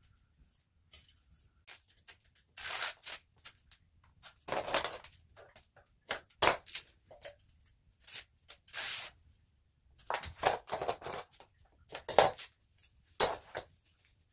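Adhesive mirror reflector tape being peeled and pressed onto the table's metal frame: a series of short, irregular scratchy bursts with quiet gaps between them.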